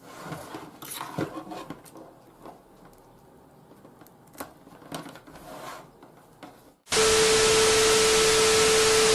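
Faint scattered clicks and rustles of small handling. About seven seconds in, a loud burst of hiss with a steady mid-pitched tone cuts in abruptly and holds at one level.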